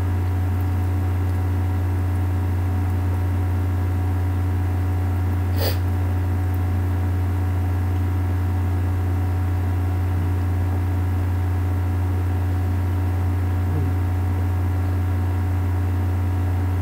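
A steady low electrical hum with a few fainter steady tones above it, and one brief click about six seconds in.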